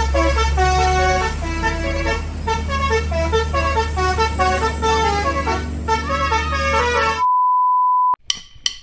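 Basuri-type bus telolet horn playing a tune of short stepped notes over a steady low hum. About seven seconds in it gives way to a single steady beep lasting about a second, followed by a few sharp clicks.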